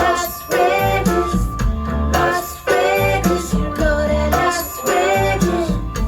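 Music: a guitar-led passage of a pop song over a steady bass line.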